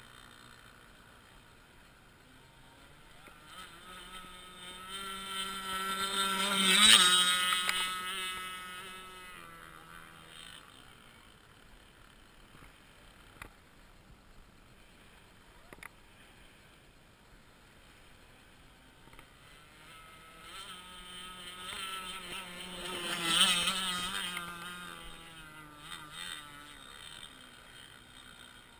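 Petrol-engined radio-controlled model speedboat running at speed and passing by twice, its high engine whine swelling to a peak about seven seconds in and again about two-thirds through, the pitch dropping each time it goes past.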